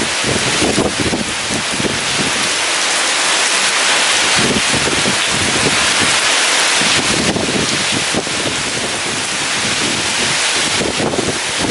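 Heavy rain falling in a steady dense hiss, with strong wind gusting underneath in low rumbles that swell and fade, strongest near the start and again near the end.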